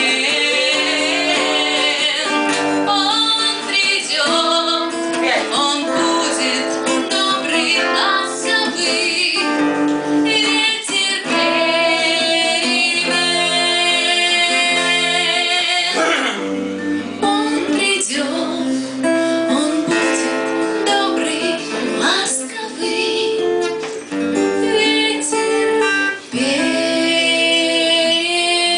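A song: a female voice singing a melody over guitar accompaniment.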